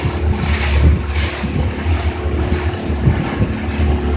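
Small motorboat under way: its engine runs with a steady hum while water rushes and splashes along the hull, and wind buffets the microphone with an uneven rumble.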